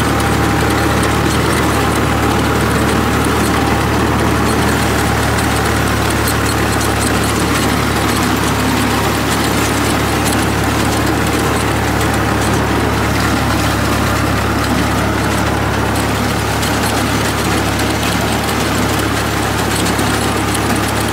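Farm tractor's diesel engine running steadily under load while it drives a PTO-powered implement through wheat stubble, heard from the driver's seat, with the implement's working noise mixed in.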